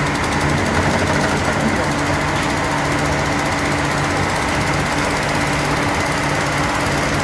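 Rotary vane steam expander running steadily on 5 bar steam, driving a flywheel and pump: a steady mechanical hum under a constant hiss of steam leaking around the machine.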